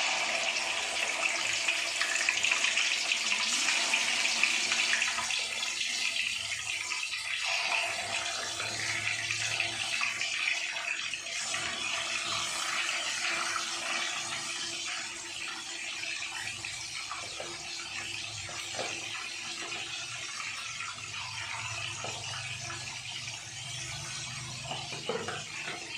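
Catfish frying in a wok of hot oil: a loud sizzle that is strongest just after the fish goes in and slowly eases, with a few small pops from spitting oil.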